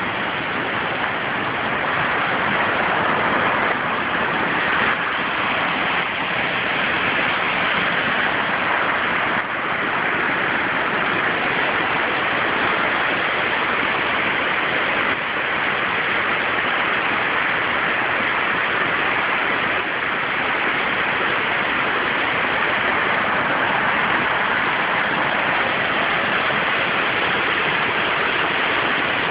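Rushing white water of a waterfall, a steady even hiss that does not change.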